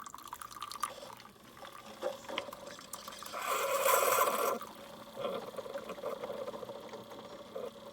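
Keurig single-serve coffee maker brewing: liquid dripping and dribbling into a cup, with a louder rush of liquid and air lasting about a second midway.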